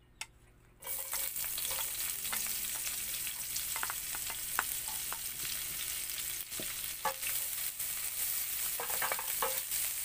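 Sliced red onion rings hitting hot oil in a nonstick pan, setting off a sudden sizzle about a second in that carries on steadily with small crackles and pops. Near the end a wooden spatula stirs them, adding a few scraping clicks.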